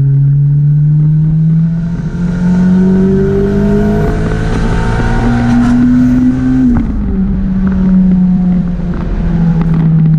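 Turbocharged Acura RSX's K20 four-cylinder engine under a hard third-gear pull, its pitch climbing steadily for about six and a half seconds, then dropping suddenly as the throttle is lifted, and running on lower and steadier.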